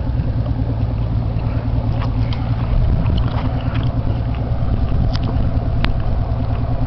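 Motorboat engine running steadily, with a single sharp click near the end.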